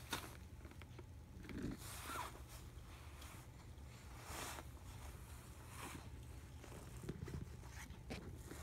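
Soft rustling and brushing of a play-yard mat as a baby crawls and shifts on it, in several short swishes.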